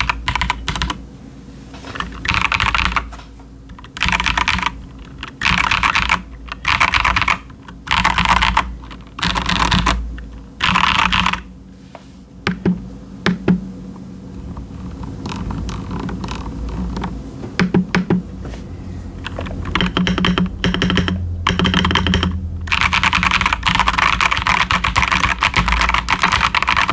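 Typing on an Akko 5075s mechanical keyboard with Bolsa Supply Techno Violet linear switches and ASA-profile doubleshot PBT keycaps: bursts of fast keystrokes with short pauses, a stretch of slower, separate key presses in the middle, then a long run of steady typing near the end.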